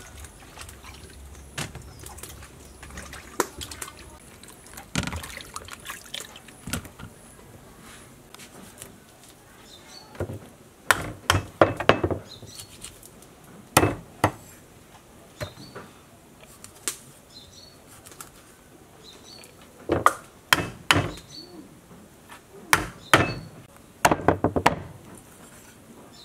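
Cleaver chopping a large river fish into steaks on a wooden chopping block: sharp knocks, mostly in clusters of several strikes, loudest about halfway through and again near the end.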